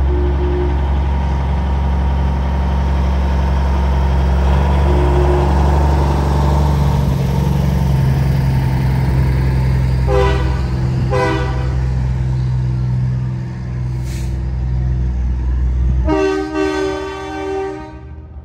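A heavy truck's diesel engine running with a loud, steady drone. A truck horn gives two short toots about ten and eleven seconds in, then one longer blast near the end as the engine drone drops away.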